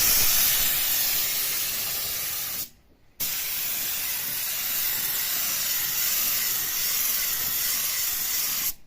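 Paint being sprayed onto new mould sheets, a steady hiss. The spraying stops for about half a second near three seconds in, then starts again and cuts off near the end.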